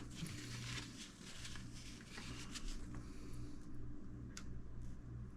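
Faint clicks and light handling noises from hands working a small oil-filled RC shock absorber, one sharper click at the start and another about four seconds in, over a steady low hum.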